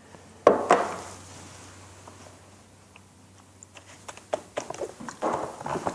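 Handling noises on a wooden workbench: one sharp knock about half a second in, then a run of small clicks and rattles near the end as a plastic finishing tray and a can of finish are moved about.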